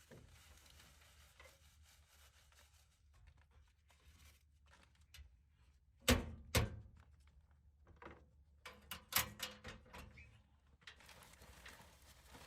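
Handling of bedding in wooden nesting boxes: faint rustling, two sharp knocks about six seconds in, then a quick run of light taps and clicks around nine seconds.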